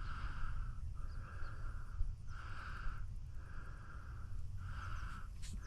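A chorus of insects buzzing in even pulses about once a second, over a low wind rumble, with a few faint bird chirps.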